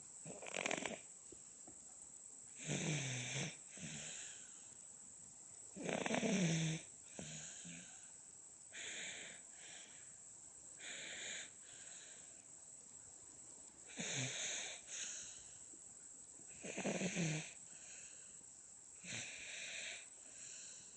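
A seven-month-old baby girl snoring in her sleep. Each breath comes every two to three seconds, and several carry a low snore tone. This is ordinary infant snoring, not especially loud.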